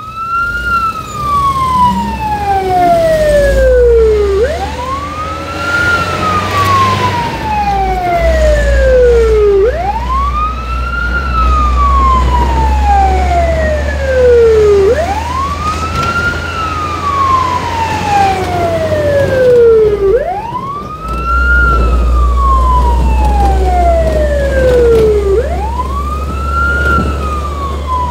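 Fire engine siren wailing in a slow repeating cycle: each sweep rises quickly, then falls slowly over about five seconds, over the steady low rumble of the truck's engine, heard from inside the cab.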